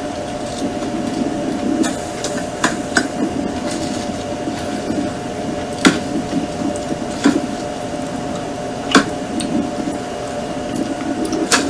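Steady buzzing of a mass of honeybees, broken by about six sharp wooden knocks as the package box is rapped and shaken to drop the bees onto the hive frames.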